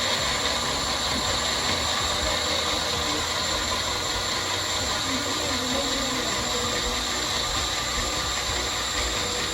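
Electric blender running steadily, blending chopped ginger with hot water.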